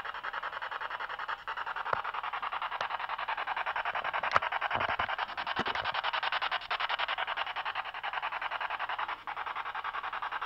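Handheld ITC Research spirit box sweeping through radio stations: a steady hiss of static chopped into very fast even pulses, with a few brief clicks.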